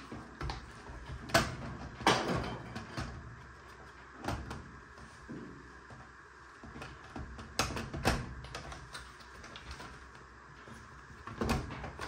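Scattered sharp plastic clicks and knocks as a washing-machine control board in its plastic housing is handled and its plastic pins and wire connectors are pushed into place. The loudest clicks come about a second and a half and two seconds in, and again around eight seconds in.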